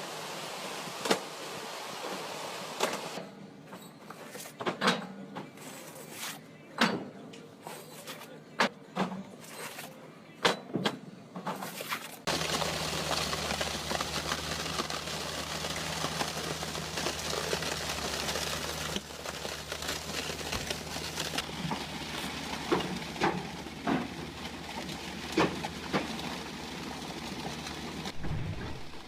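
Sharp clacks and knocks at irregular intervals from road-paving bricklaying machinery, typical of paving bricks dropping into place. About twelve seconds in the sound cuts abruptly to a steady low machine hum with occasional knocks.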